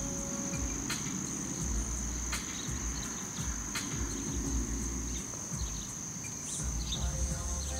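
Crickets chirring in one steady high-pitched drone, with low rumbling noise on the microphone that comes and goes and a few light clicks.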